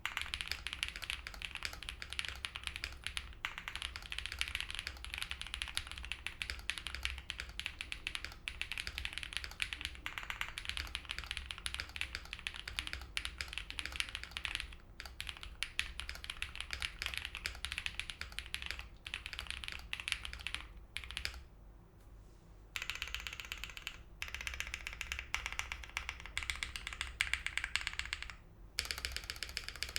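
Continuous typing on a 75% mechanical keyboard with a polycarbonate plate, Holy Panda R3 tactile switches and GMK Botanical keycaps: a dense, fast patter of key presses, with a short pause about two-thirds of the way through.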